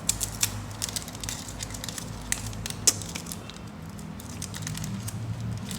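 Plastic and paper packaging crinkling and crackling as a parcel is handled and opened, with irregular sharp clicks, the loudest about three seconds in.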